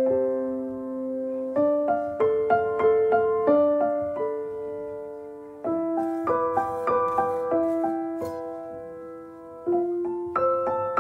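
Background piano music: a slow melody of single struck notes and soft chords, each note ringing and fading.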